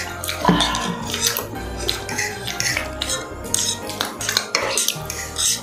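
Forks and spoons clinking and scraping against plates, with irregular clicks of people eating at a laden table.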